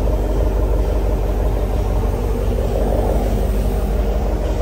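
A motor vehicle's engine running steadily: a loud, even, low-pitched sound with no change in speed.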